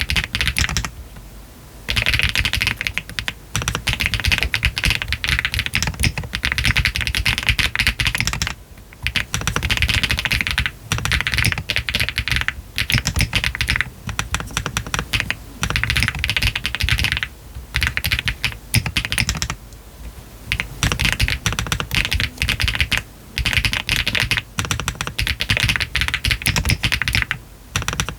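Continuous typing on a Meletrix ZOOM TKL mechanical keyboard fitted with Yogurt switches, PBT keycaps and a polycarbonate flex-cut plate, its case foam removed. The keystrokes come in fast runs of a few seconds, broken by short pauses.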